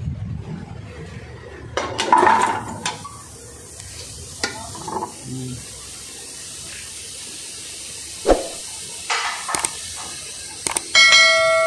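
Cubed squash tipped from a plate into an empty aluminium cooking pot, clattering about two seconds in, followed by a few sharp knocks of metal kitchenware. Near the end a bell-like chime rings out.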